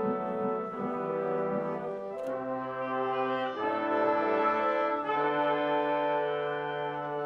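Orchestra playing slow ballet music, brass to the fore: long held chords that move to a new chord three times.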